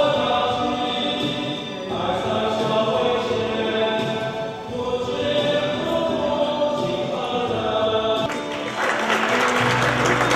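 Music with choir-like singing in held, melodic lines. About eight seconds in the song stops and clapping from an audience takes over.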